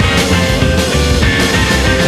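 Instrumental passage of a rock song played by a full band, with no singing: dense and loud over a steady beat, with a long, slightly wavering held note above it.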